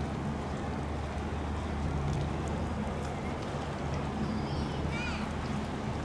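Steady low drone of a boat engine over an even wash of background noise, with a few short, high, wavering chirps about four to five seconds in.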